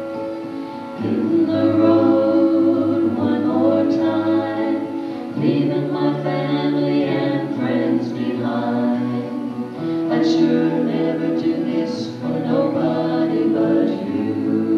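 Mixed quartet of two men and two women singing a gospel song in harmony, holding sustained chords, louder from about a second in.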